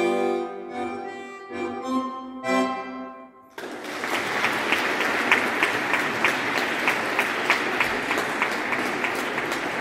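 Button accordion playing the closing chords of a piece, the last two short and separate. After a brief pause an audience applauds steadily.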